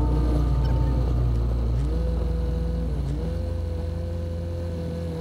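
Piper PA-28-181 Archer III's four-cylinder piston engine running, its pitch stepping up about two seconds in and then holding steady, slowly growing quieter.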